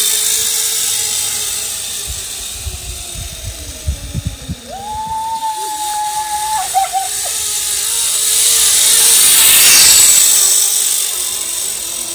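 Flying fox pulley trolley running along its steel cable: a whirring hiss that swells to a peak about ten seconds in and then eases off. Low thumps sound in the first few seconds, and a single held high note comes about five seconds in.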